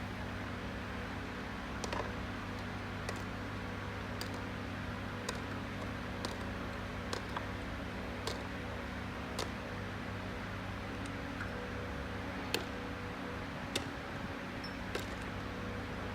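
A steady machine-like hum, with short sharp clicks about once a second over it.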